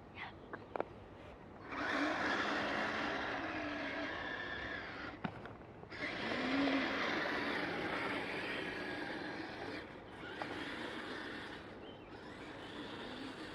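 Kyosho Blizzard SR radio-controlled tracked vehicle driving in three runs, its electric motor whining with a pitch that rises and falls as it speeds up and slows, over a rushing noise. A few small clicks come just before the first run.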